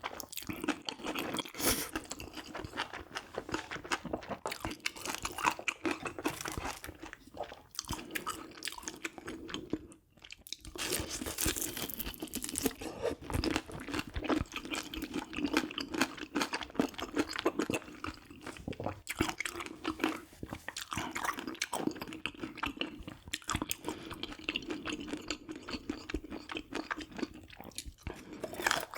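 Close-miked chewing and crunching of food, a dense run of small crunches and wet mouth sounds, with a brief pause about ten seconds in.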